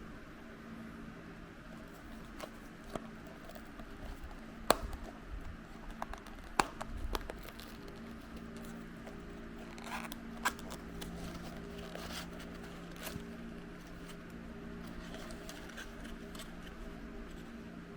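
Unboxing sounds: small toys and their packaging being handled, with scattered sharp clicks and short crinkling and tearing noises over a steady low hum, busiest in the middle of the stretch.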